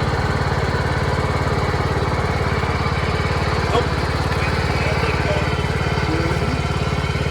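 Cub Cadet garden tractor engine running steadily with an even, fast pulse, as the tractor starts pulling a strapped load of tree branches.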